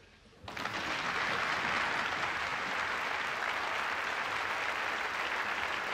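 A large audience applauding, breaking out about half a second in and holding steady.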